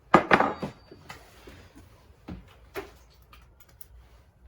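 Metal clatter and clinks of loose bolts and hand tools handled on a workbench during engine disassembly. A sharp rattle with a brief ring comes about half a second in, then a few single knocks and clicks.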